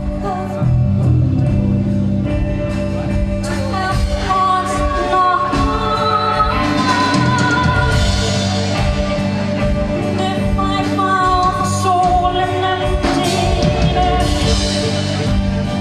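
A live band playing a song: sung vocals over guitar, bass and drums, with cymbals washing in around the middle and again near the end.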